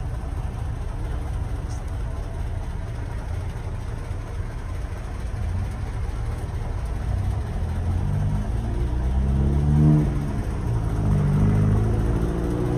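Low, steady vehicle engine and road rumble. About eight seconds in, the engine note rises and steps in pitch as a vehicle speeds up.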